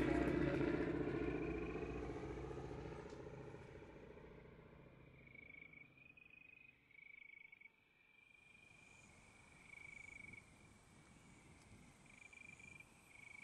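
Piston radial engines of two passing Douglas DC-3 and C-47 airliners droning, falling in pitch and fading away over the first few seconds. Then insects chirping in short repeated bursts, with a thin high hiss joining about eight seconds in.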